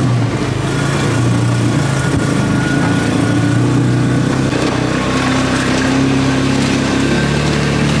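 Polaris Ranger 570 side-by-side's single-cylinder engine running steadily as the vehicle drives slowly across a muddy stubble field, with a constant hiss of tyre and wind noise over it.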